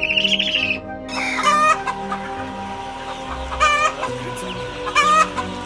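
A hawk's drawn-out rasping call in the first second, then three short, harsh chicken calls spaced a second or two apart. Background music plays underneath.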